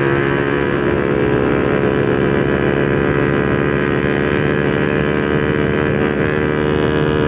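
Honda RS150R's single-cylinder four-stroke engine running through an open Espada 32 mm exhaust, held at steady revs with a constant, loud note.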